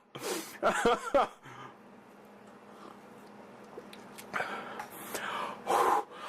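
A man's wordless reactions to the burn of a hot-pepper ginger beer: a short wavering vocal sound in the first second, a quiet pause, then a run of sharp, breathy exhalations with a brief voiced groan near the end.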